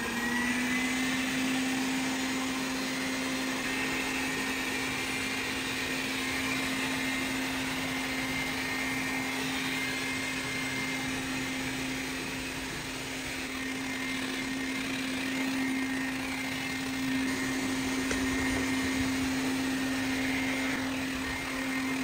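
Xiaomi Vacuum Mop Pro 2 Plus robot vacuum running at turbo suction while mopping a parquet floor: a steady motor hum with airy fan noise. The hum rises slightly in pitch right at the start as the turbo setting takes hold, then holds steady.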